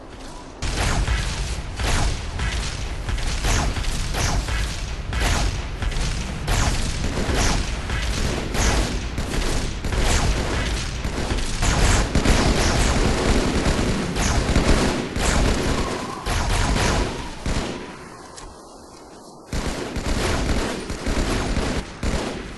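Sustained heavy gunfire: many shots overlapping in a dense, continuous fusillade with machine-gun bursts, starting under a second in and pausing for about a second and a half near the end before resuming.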